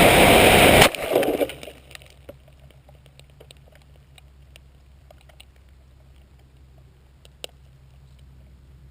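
Onboard sound of an RQ-11 plane crashing: loud motor whine and rushing air cut off abruptly a little under a second in, with a short burst of scraping noise just after. Then it goes quiet, with scattered faint ticks and one sharper click near the end.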